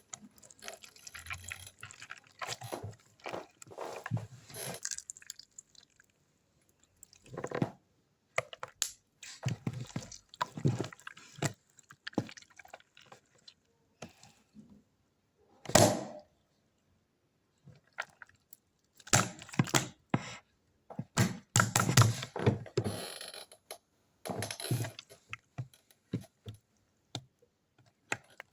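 Hands squishing and stretching sticky yellow slime, making irregular wet squelches, clicks and little sticky pops in clusters, with short pauses between them.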